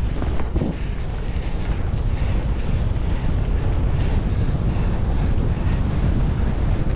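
Wind buffeting the camera microphone as a low rumble, with skis hissing and scraping over tracked-out snow during a steady descent.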